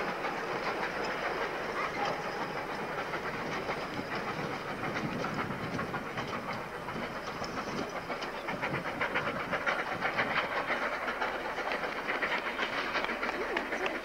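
Gravity slate train of narrow-gauge slate wagons and brake van rolling downhill without a locomotive, wheels clattering on the rails. A rapid run of clicks grows clearer in the second half.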